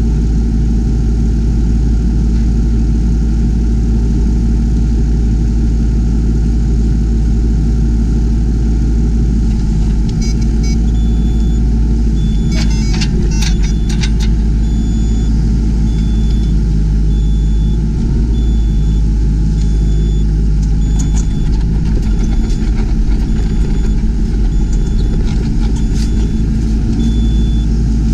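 Yanmar ViO20 mini excavator's diesel engine running steadily under work, with a few clanks and knocks partway through and a repeated high electronic beep over the second half.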